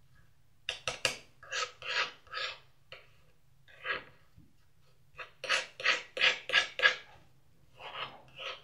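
Metal palette knife scraping and smearing thick paint on a palette in short repeated strokes, with a quick run of them just past the middle.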